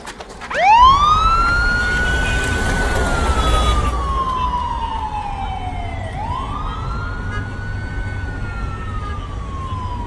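Police siren wailing slowly: a tone that starts about half a second in, climbs quickly, holds, then slides down over several seconds before climbing again, twice. A steady low rumble runs underneath.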